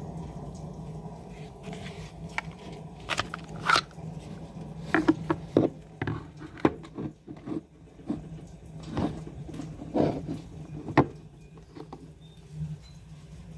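Scattered clicks and knocks from handling a Sig Sauer P365 pistol in and out of a molded plastic holster and against a wooden tabletop, the sharpest knock near the end. A steady low hum runs underneath.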